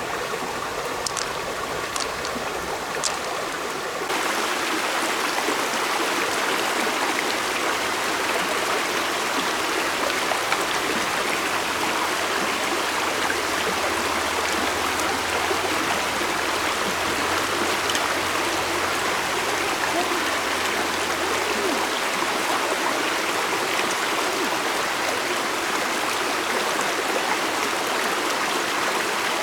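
Steady rushing of flowing stream water. About four seconds in, it becomes a fuller, slightly louder rush, and there are a few faint clicks before that.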